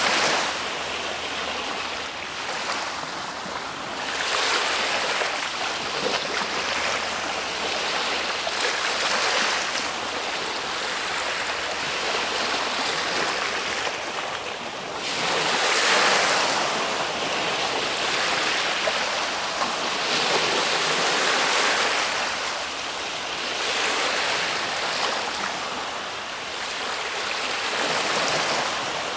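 Ocean waves surging and washing in, a steady rush of surf that swells and eases every few seconds, with stronger swells about 4, 15 and 20 seconds in.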